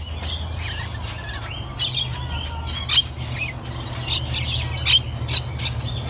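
Rainbow lorikeets screeching: many short, high squawks, one after another every second or so, over a steady low hum.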